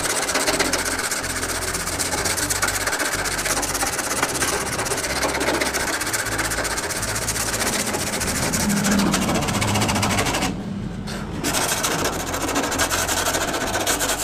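Coarse 60-grit sandpaper on a hand sanding block rubbed rapidly back and forth over a Vespa LX steel body panel, a fast steady scratching that stops for about a second around two-thirds of the way through. The sanding takes the paint down so the dents show before they are hammered out from inside.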